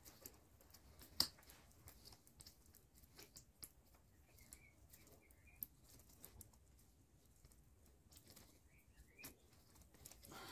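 Near silence with scattered faint clicks and ticks, one sharper click about a second in, and faint brief chirps twice.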